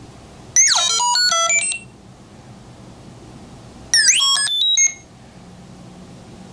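Small 8-ohm toy speaker driven by an Arduino Uno's PWM tones, playing R2-D2-style electronic beeps and whistles. There are two quick bursts of swooping and stepping chirps: one about a second long starting half a second in, and a shorter one about four seconds in.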